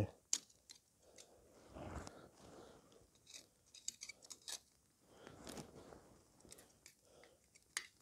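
Faint, scattered clicks and light scraping as sausages are handled with tongs on a metal grill grate over campfire coals.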